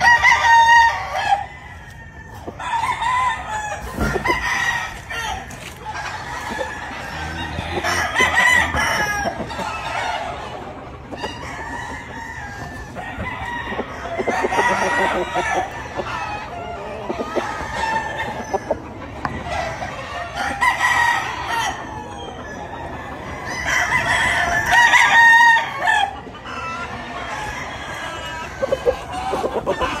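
Game-fowl roosters crowing again and again, about six crows spread out with short gaps between them.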